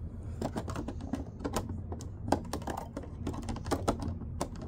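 Small scissors clicking and snipping at the ties holding an action figure in its cardboard and plastic packaging: a quick irregular run of small sharp clicks.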